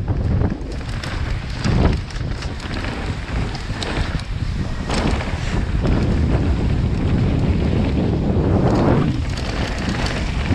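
Wind buffeting the microphone of a mountain bike's handlebar camera on a fast downhill run, mixed with the tyres rolling over dirt and loose stones and the bike knocking and rattling over bumps.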